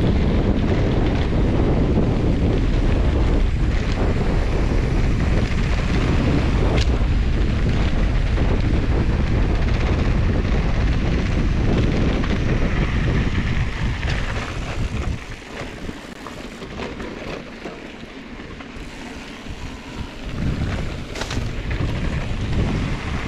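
Wind buffeting a GoPro's microphone on a moving mountain bike, a loud, steady rumble that eases for about five seconds past the middle and then picks up again. A sharp click or two cut through it.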